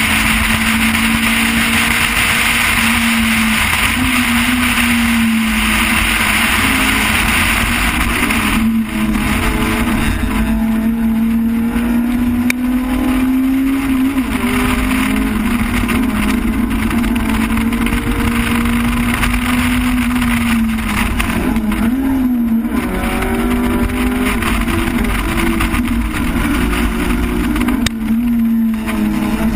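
Car engine heard from inside the cabin while driving at speed, its pitch rising and falling with throttle and speed. A steady rush of road noise goes with it and eases about nine seconds in.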